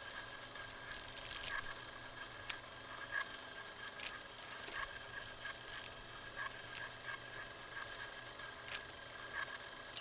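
Steady analog-style background noise: hiss with a faint low hum and a thin high tone, broken by scattered irregular clicks and crackles like worn film or old tape.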